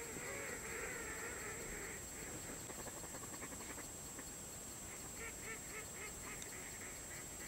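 Faint calling of a flock of waterfowl: a run of short, arching honking calls in the first two seconds, then a quick series of clipped calls, about five a second, a little past the middle.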